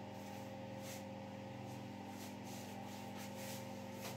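Faint rustling of hands fluffing and scrunching long curly hair, in soft swishes every half second or so, over a steady low electrical hum.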